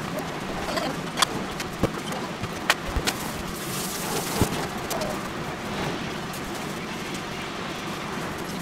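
Steady kitchen background hiss with a faint low hum, broken in the first half by a few light clicks and taps of items being handled on the counter.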